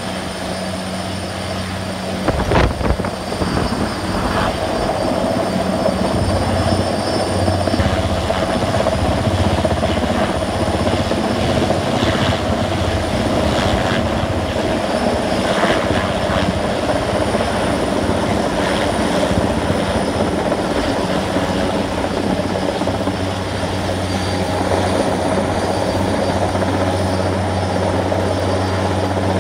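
Helicopter hovering close overhead with a load on its long line, its rotor and engine running steadily and loudly. There is a brief sharp knock about two and a half seconds in.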